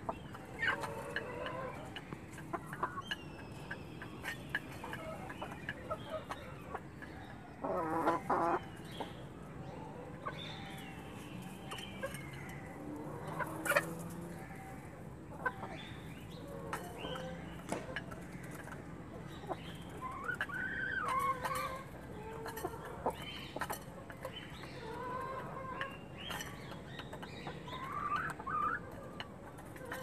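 Desi Golden Misri hens clucking in short, repeated calls as they feed, with a louder rapid run of clucks about eight seconds in. Scattered short sharp taps of beaks pecking grain from a clay bowl run through it.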